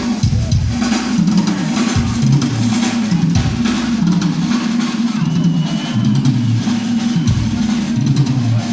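Rock drum kit solo played live: fast, continuous bass drum and snare hits with rolling toms that step up and down in pitch.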